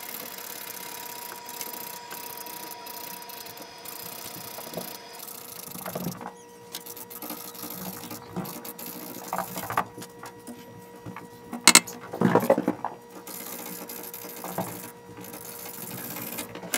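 Scattered clicks, knocks and creaks of a clamp being wound by hand to pull a bar and load a bolt, over a faint steady hum. The loudest is a sharp click about two-thirds through.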